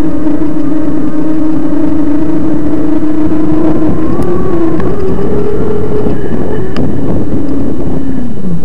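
Electric mountain bike's motor whining under low power, its pitch steady, then rising about five seconds in and falling away near the end as the bike slows. A constant rushing noise runs underneath.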